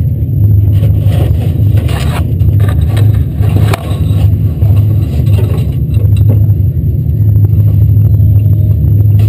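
Four-cylinder dirt-track race car engine running at a steady loud rumble, with a sharp knock nearly four seconds in.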